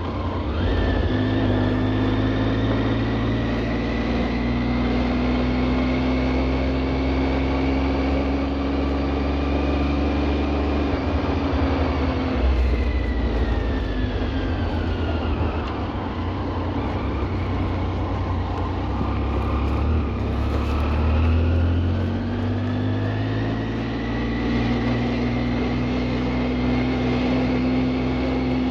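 A machine running with a low rumble and a whine whose pitch slowly rises, drops away around the middle and climbs again near the end.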